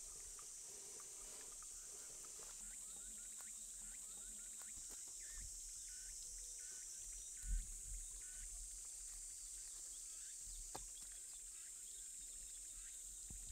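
Steady high-pitched drone of insects in woodland, with a few faint chirps. A single dull thump about seven and a half seconds in and a sharp click near the end stand out above it.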